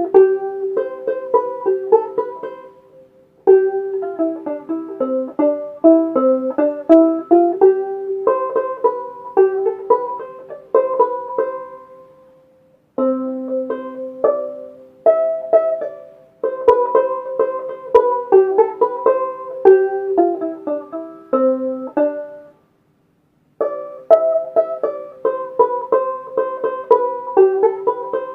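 Kmise four-string concert banjolele, a ukulele with a banjo-style black drum head, being played: a tune of plucked notes in four phrases, broken by three short pauses. It sounds quite loud.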